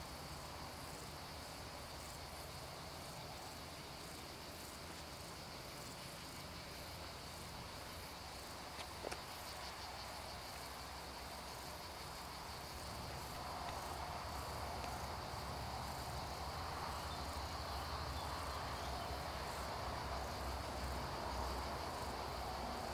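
Insects chirring steadily in the roadside vegetation. About halfway through, a low rumble starts to build and grows louder.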